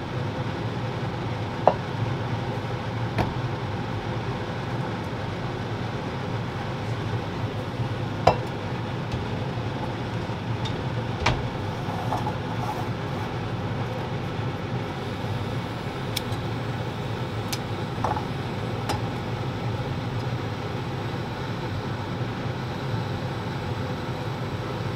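Steady hum and hiss with a handful of sharp clicks and clinks as a small stainless pot and canister camp stove are handled on a counter.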